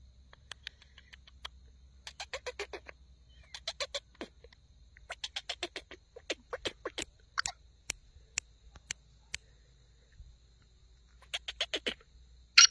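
Male black francolin giving soft clicking calls: short rapid runs of several clicks with pauses between, then single clicks about every half second, and another quick run near the end.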